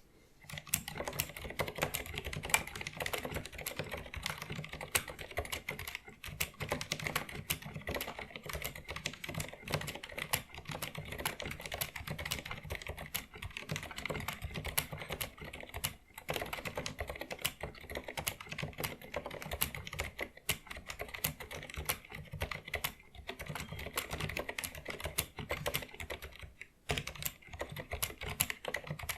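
Fast, continuous typing on a Filco Majestouch 2 mechanical keyboard with Cherry MX Pink (silent red) linear switches: a dense, muffled patter of keystrokes, broken by a few brief pauses.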